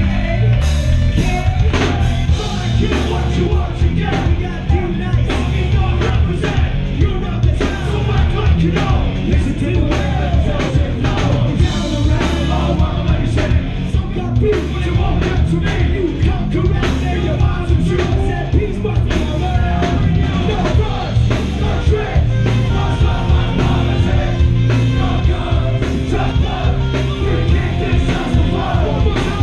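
Live rock band playing loud, fast crossover music, with drums, electric guitars and bass, and yelled vocals, heard from within the club crowd.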